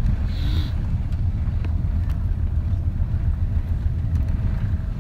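Steady low rumble inside the cabin of an Airbus A350-900 rolling down the runway after touchdown, with its ground spoilers deployed.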